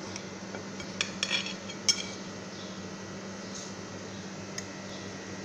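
A metal knife clinking against a plate while a slice of sponge cake is cut, a few sharp clicks between one and two seconds in, over a steady low hum.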